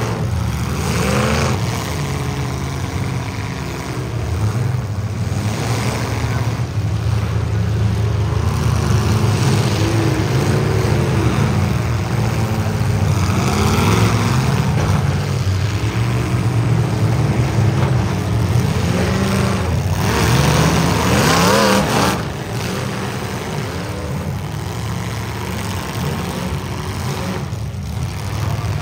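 Engines of full-size demolition derby cars running hard and revving, their pitch rising and falling over and over. The engines are loud until about 22 seconds in, then drop to a lower level.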